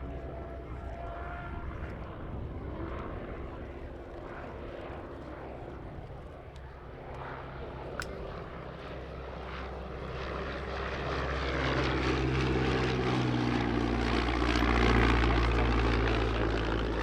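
Royal Aircraft Factory S.E.5a First World War biplane's V8 engine running in flight with its propeller, growing louder from about ten seconds in and loudest near the end as it passes closer. A single sharp click is heard about halfway through.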